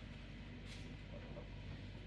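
Quiet room tone: a faint steady low hum, with one soft tick a little under a second in.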